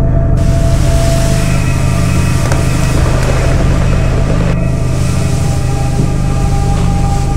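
Loud droning film soundtrack: a heavy, steady low rumble with hiss above it and a few held higher tones.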